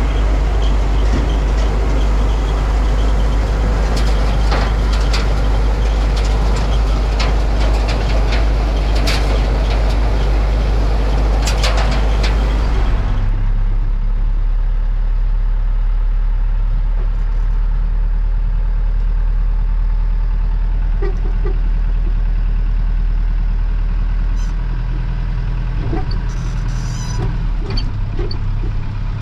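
Massey Ferguson 38 combine harvester running under load while cutting wheat: a loud steady engine and threshing-machinery noise with scattered sharp ticks. About halfway through it switches abruptly to a lower, quieter engine drone.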